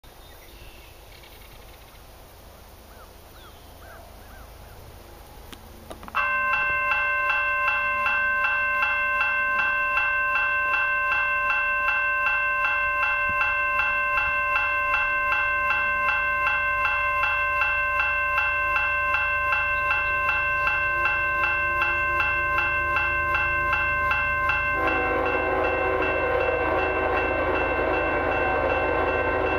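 Railroad crossing warning bell starts ringing suddenly about six seconds in, a loud, rapid, steady ringing set off by an approaching freight train. From about 25 seconds the lead locomotive's air horn joins it, sounding a held chord for the crossing.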